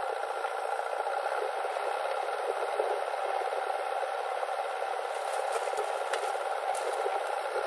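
Diesel engine of a JCB 3DX backhoe loader running steadily under load while its rear arm swings a bucket of earth over a tractor trolley, heard as an even mechanical drone. A few faint knocks come near the end.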